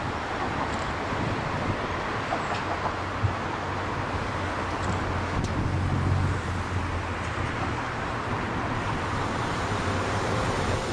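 Steady vehicle rumble and hiss with a low hum that swells briefly about six seconds in, and a few faint clicks.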